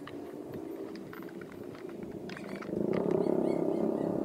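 A low rumble that grows louder about three seconds in and holds, with a scatter of faint light clicks before it swells.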